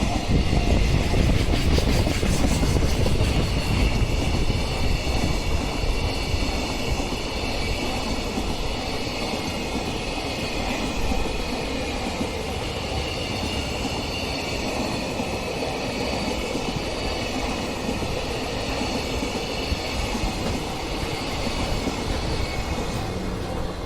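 A long train passing close by on the rails, wheels clattering with a steady high squeal. It is loudest in the first few seconds, then keeps on evenly.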